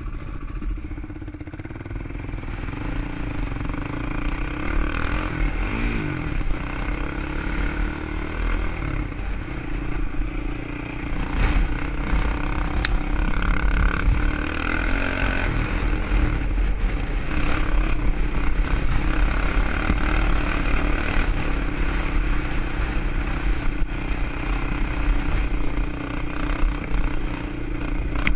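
ATV engine running as the quad is ridden off-road, its pitch rising and falling with the throttle.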